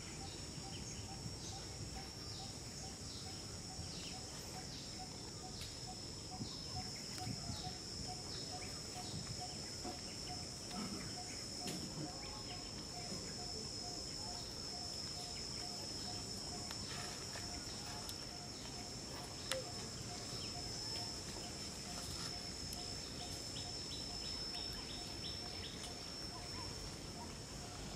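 Outdoor ambience of insects and birds: a steady high-pitched insect drone, a low note repeated evenly about three times a second, and short chirps coming and going. One sharp tap about two-thirds of the way through.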